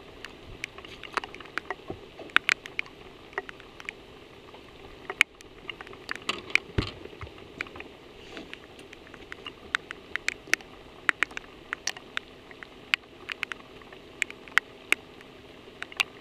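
Rain pattering: irregular sharp ticks of raindrops striking the camera, over a steady soft hiss.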